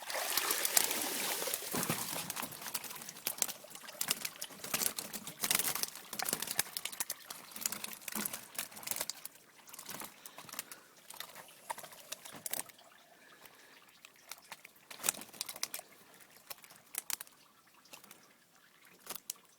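Water splashing and pattering with many sharp clicks, starting suddenly and dying down to scattered drips and clicks over about twelve seconds.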